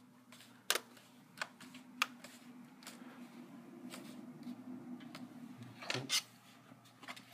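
Plastic screen bezel clips of a laptop lid snapping into place under finger pressure: several sharp clicks at uneven intervals, over a low steady hum.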